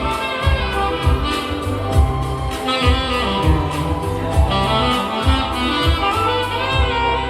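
Saxophone playing a melody over a backing track with a steady bass and drum beat.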